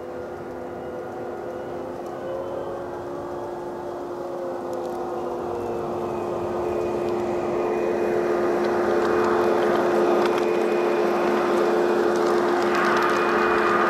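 Zimo MX699 sound decoder in a G-scale PIKO BR 132 'Ludmilla' model locomotive, playing a Henning sound-project diesel engine sound through the model's loudspeaker. It is a steady engine drone that wavers briefly in pitch about a third of the way in and grows steadily louder as the locomotive draws close.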